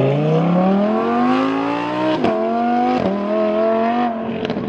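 Lamborghini Huracán's naturally aspirated V10 accelerating hard, the engine note climbing and dropping with quick upshifts about two, three and four seconds in, then easing off as the car pulls away.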